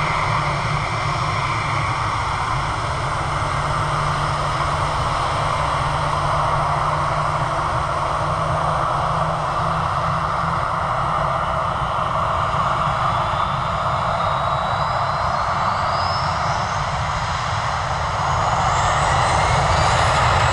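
Jet engines of an Allegiant Air Airbus A320 running steadily as the airliner rolls along the runway. In the second half a thin rising whine comes in and the sound grows louder near the end as the engines spool up.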